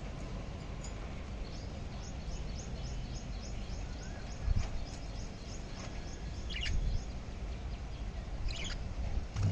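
Budgerigars chirping in a cage: a run of short, high chirps, about four a second, then two louder chirps near the end, over a steady low rumble.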